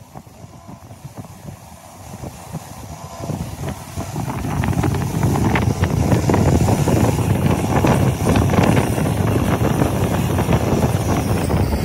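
Motor-driven wire brush wheel scouring rust and paint off a hexagonal steel hydraulic-jack part held against it by hand: a harsh, steady scraping hiss that grows louder over the first few seconds as the part is pressed in, then holds steady.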